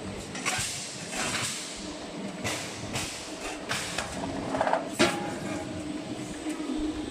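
Automatic tin-can lid capping machine running: a steady hum broken by short hisses and knocks at uneven intervals, the sharpest knock about five seconds in.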